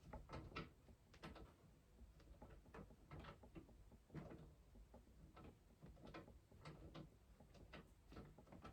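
Faint, irregular clicks and light scrapes of a screwdriver turning a small screw into a motherboard standoff. The screw will not thread because it is the wrong type for the standoff.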